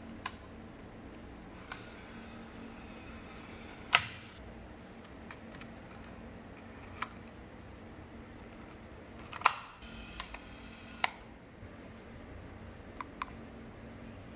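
MiniDV camcorder's tape compartment being handled: sharp plastic clicks and snaps as the door is opened, the cassette is loaded and the holder and door are pushed shut. The loudest snaps come about four seconds in and about nine and a half seconds in, with a faint steady hum underneath.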